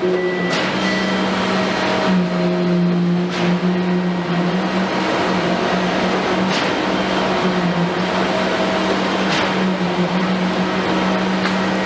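Komatsu PC210 excavator's diesel engine running steadily under work, with higher tones coming and going over it and a sharp knock every few seconds.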